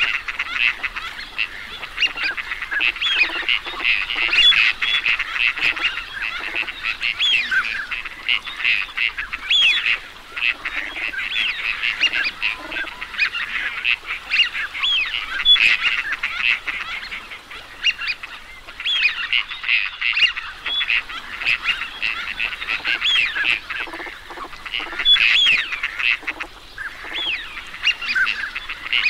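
A flock of teal calling continuously: dense, overlapping high-pitched whistles and short calls, with a few brief lulls.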